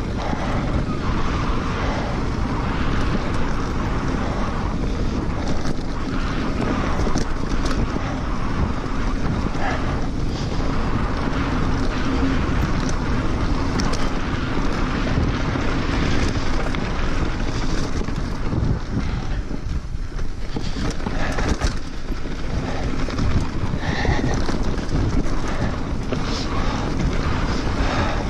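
Mountain bike rolling fast down a dirt singletrack: wind buffeting the microphone and tyres running over dirt, with scattered clicks and clatters from the bike over bumps.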